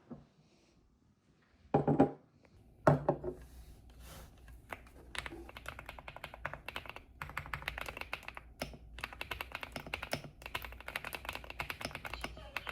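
Two loud knocks about two and three seconds in, then fast, steady typing on a computer keyboard.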